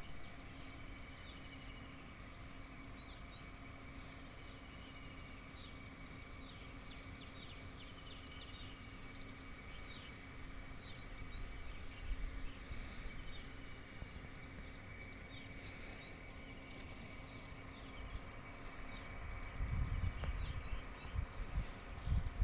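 Birds chirping, many short quick calls overlapping throughout, over a steady faint high whine and low hum. Wind buffets the microphone in gusts near the end.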